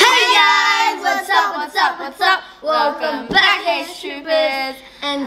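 A woman and two children singing together in unison, with notes held and sliding.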